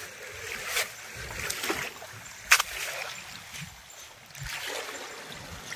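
Handling noises of a landed rohu being held down on sandy ground while the hook is worked out of its mouth: scuffing with a few sharp clicks and one loud knock about halfway through.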